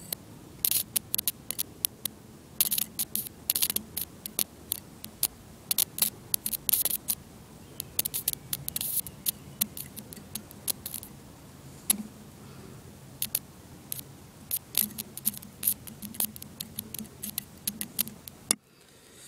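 Irregular crackling and sharp clicking as a wire tip, fed by an 80 W solar panel, is dabbed against a steel bolt and plate, striking brief sputtering arcs that do not hold. The clicks come in uneven clusters and stop abruptly shortly before the end.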